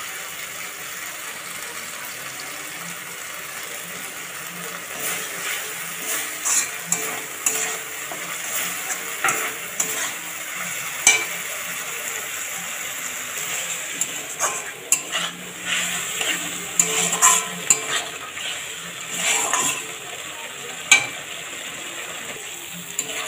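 Spiced tomato and poppy-seed masala sizzling as it fries down in oil in a metal kadai. From about five seconds in, a flat spatula scrapes and clicks against the pan as the paste is stirred.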